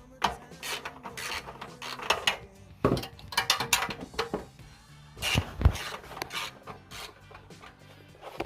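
Recoil pull starter being taken off a small engine: irregular metal clicks, knocks and scraping of tools and parts being handled.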